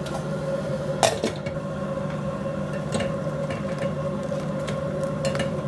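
Shrimp simmering in bubbling butter sauce in a pot, a spatula stirring with one sharp knock against the pot about a second in and a few lighter taps after. A steady hum runs underneath.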